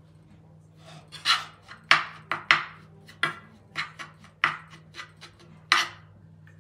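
Metal spoon scraping and knocking against a metal frying pan while scooping up crumbly halva mixture: a dozen or so uneven scrapes and clinks.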